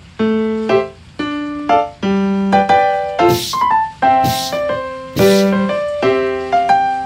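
Background music: a bouncy electric-piano tune of short, evenly spaced notes, with three short hissy swishes about a second apart in the middle.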